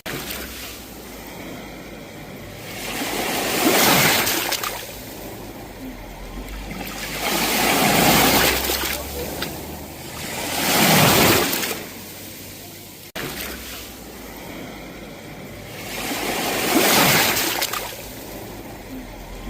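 Sea waves breaking and washing on the shore, the surge rising and falling away four times, a few seconds apart.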